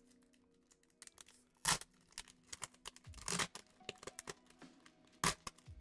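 A Japanese Pokémon booster pack's foil wrapper being torn open, crinkling, with three louder rips spaced a second and a half to two seconds apart.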